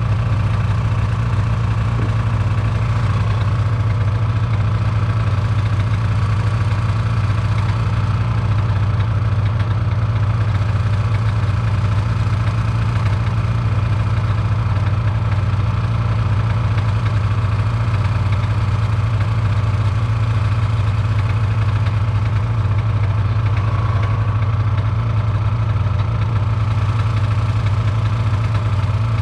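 Snowmobile engine running at a steady, unchanging pitch, a constant drone with no revving.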